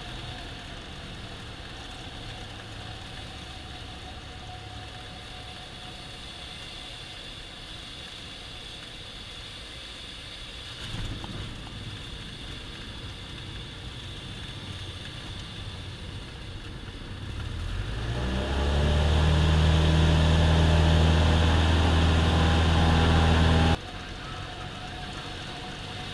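Cessna 172M's four-cylinder Lycoming engine and propeller running quietly at low power on the landing roll. About eighteen seconds in, full throttle comes in, the pitch rising into a loud, steady full-power run for the touch-and-go takeoff. The loud engine sound drops off abruptly a couple of seconds before the end.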